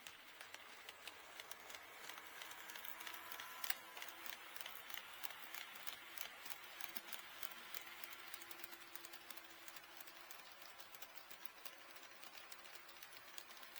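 HO scale model train running along the track: rapid, irregular small clicks of the wheels over the rail joints, over a faint steady hum. The sharpest click comes nearly four seconds in.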